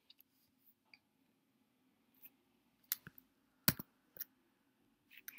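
A handful of short, scattered clicks and knocks over a faint steady hum. The loudest is a single knock about two thirds of the way in.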